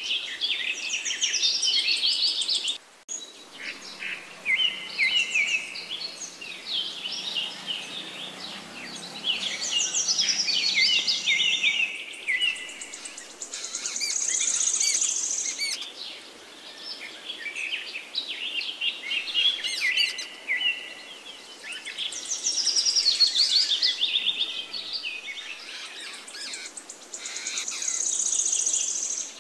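Jungle babblers chattering: bouts of rapid, harsh, squeaky notes that break off and start again every few seconds.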